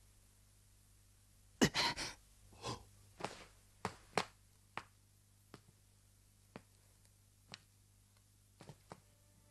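Heavy gasping breaths from an exhausted person, strongest about one and a half to two seconds in, followed by a string of faint, irregular sharp ticks over a low hum.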